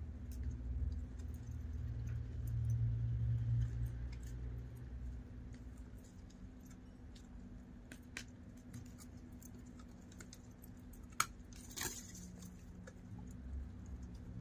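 A dog biting and chewing at the thin stems of a bush: scattered small cracks and snaps of twigs, one sharp crack about eleven seconds in, and a brief rustling burst just after. A low rumble runs under the first few seconds.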